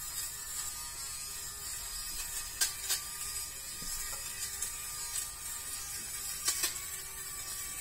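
Dafko battery-powered lint remover (fabric shaver) running steadily with a small-motor hum as it is pressed over a fabric cushion cover, shaving off lint and pills, with three short clicks along the way.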